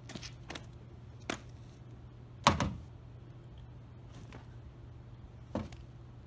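Scattered knocks and clicks, about half a dozen, with one louder thump about two and a half seconds in, over a steady low hum.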